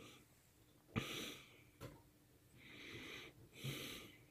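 Faint heavy breathing through the nose close to the microphone: three slow, hissy breaths, with a small sharp click about a second in.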